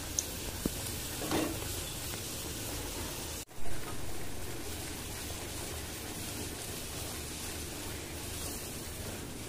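Chholar chhatu kachoris deep-frying in hot oil in a kadai: steady sizzling and bubbling, with a few light clicks of a slotted spoon against the pan in the first second. About three and a half seconds in, the sound breaks off for an instant and comes back with a brief louder burst.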